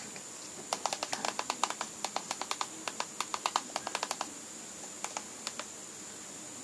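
Typing on a computer keyboard: a quick run of key clicks lasting about three and a half seconds, then a few more keystrokes around five seconds in, entering the command for the next example script.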